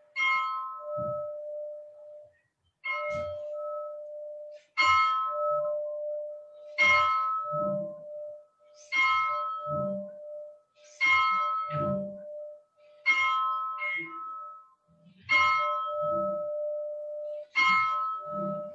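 A bell tolled slowly, struck about every two seconds, about nine strokes in all. Each stroke rings on and fades before the next one. This is a memorial tolling of 40 strokes for the COVID-19 dead.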